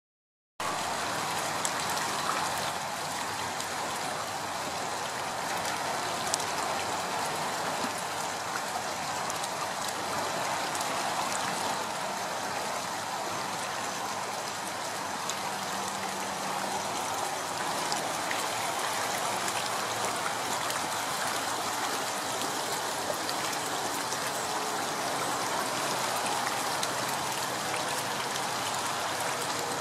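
A dense school of dying bunker (Atlantic menhaden) crowded at the water's surface, flipping and splashing in a steady patter like rain. The fish are starving for oxygen.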